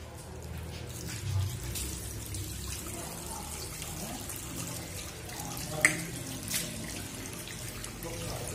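Water running from a tap into a bathroom washbasin while a face is washed with splashing hands, with a sharp clack about six seconds in.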